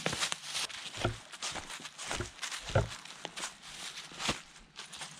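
Footsteps and a leashed hound moving through dry fallen leaves, crunching and rustling irregularly, with a few dull low thumps, the loudest about halfway through.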